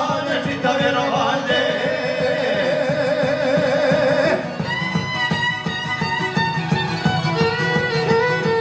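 Live folk kolo music played on violin and šargija, with male singing. A held, wavering sung note breaks off about four seconds in, and the violin then carries the tune.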